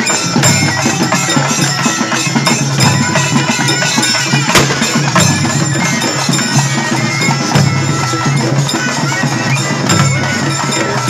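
Traditional ritual procession music: drums beating steadily while a reedy wind melody wavers over a continuous low drone.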